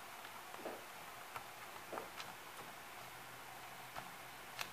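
A few faint, sharp clicks and taps as fingers press a Wi-Fi antenna cable's tiny connector onto a laptop's wireless card, the sharpest click near the end.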